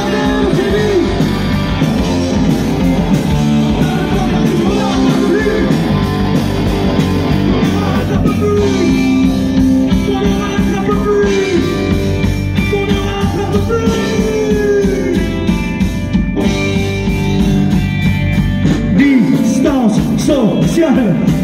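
Live rock band playing with drums, electric guitars, bass and keyboard, and a singer's voice over it.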